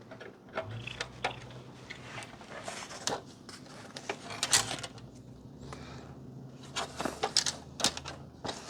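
Scattered clicks and knocks of a serial cable and its connector being handled and tried against a port on the cable tester.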